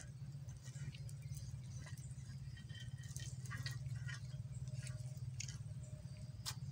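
A grilled chicken being torn apart by hand and with a knife, the drumstick pulled off: faint squishing and crackling of meat and skin with scattered small clicks and a sharper click near the end, over a steady low hum.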